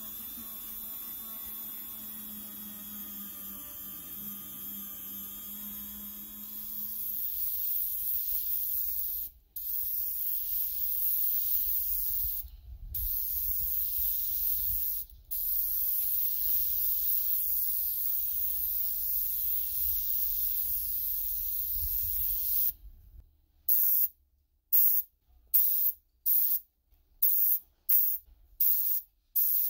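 A small rotary tool whines for the first six seconds or so, then a compressed-air paint spray gun hisses in long steady passes, broken by three short pauses. Near the end the gun fires a quick series of short spray bursts.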